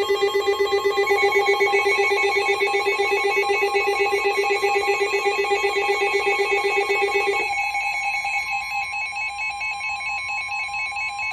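Emergency Alert System attention tone sounding ahead of a broadcast severe thunderstorm warning: a loud, steady alarm made of several held tones with a fast warble. About seven and a half seconds in, the lowest tone drops out and the alarm continues slightly quieter.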